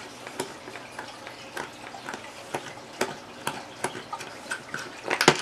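Small, irregular clicks and taps of hands handling a hard plastic tackle box lid, with a quick run of louder clicks near the end.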